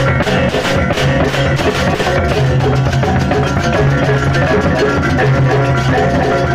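Balinese gamelan baleganjur playing: large ceng-ceng kopyak hand cymbals clashing in a fast, dense rhythm over drums and ringing reyong gong-chimes, with low held tones underneath.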